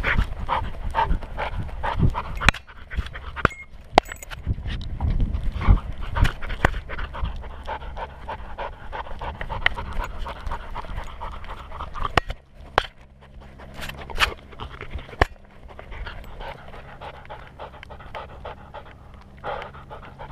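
Welsh Springer Spaniel puppy panting heavily right at a collar-mounted camera, with a few sharp clicks and knocks mixed in. The panting is louder in the first half and eases after about twelve seconds.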